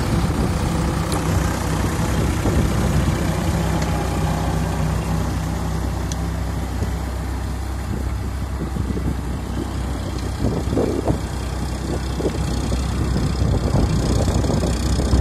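Eicher 551 tractor's three-cylinder diesel engine running steadily under load while it pulls a rotavator through flooded paddy mud. The sound eases off somewhat about halfway through as the tractor draws away, then grows louder again near the end as it turns back.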